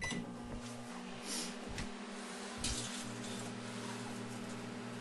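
Microwave oven switched on and running, a steady electrical hum with a light bulb inside it. A few short clicks or crackles come over the hum between about one and three seconds in.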